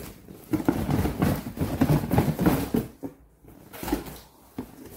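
Cardboard toy box being handled and its lid pulled open: a run of scraping and rustling cardboard for a couple of seconds, then a soft knock near the end.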